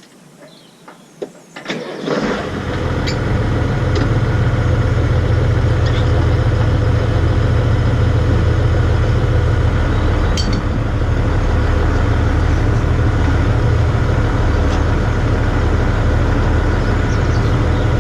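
A few clicks, then a tractor engine starts about two seconds in and settles into a steady idle.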